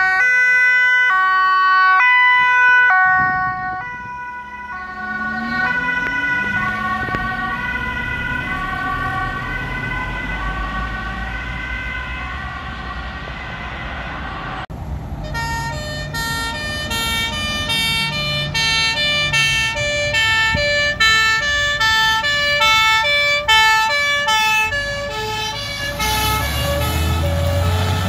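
Dutch two-tone emergency sirens. An ambulance's siren is loud for the first few seconds, then quieter and wavering in pitch as the ambulance drives off. About halfway through, another two-tone siren comes in, switching pitch about every half second, with a heavy engine rumbling under it near the end.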